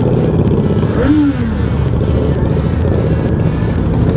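Motorcycle engines running low and steady at walking pace in slow traffic, from the rider's Yamaha XJ6 and the motorcycles just ahead. A brief falling tone comes about a second in.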